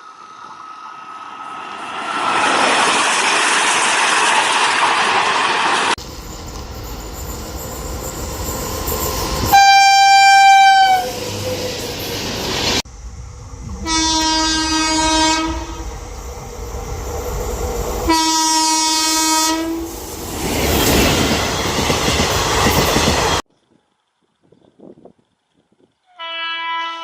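Indian Railways train horns in a run of separate recordings. A passing train's rushing noise and wheel clatter build up first. A high horn blast follows, dropping in pitch as it ends, then two lower horn blasts of about a second and a half each, with more passing-train noise between them. A short gap, then another horn starts near the end.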